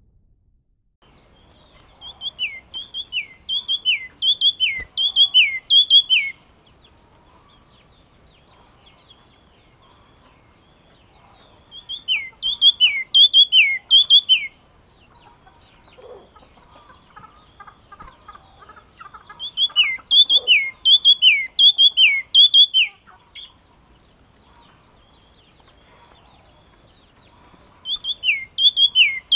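A yellow-cheeked tit singing in four bursts, each a quick run of loud, clear notes that slide down in pitch, repeated about two a second, with pauses of several seconds between the bursts.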